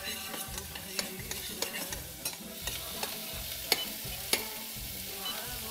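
Food frying in pans on a stovetop, a steady sizzle, while it is stirred with a utensil that clicks and scrapes against the pan several times.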